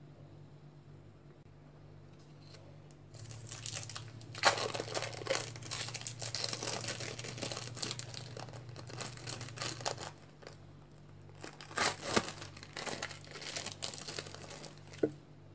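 Thin plastic film wrapper of an individually wrapped cheese slice crinkling as it is peeled open, starting a few seconds in, with a short pause partway through.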